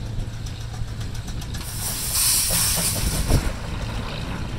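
1924 Minneapolis Threshing Machine Co. steam traction engine letting off a loud hiss of steam for about a second and a half, starting a little under two seconds in, over the engine's steady low running sound.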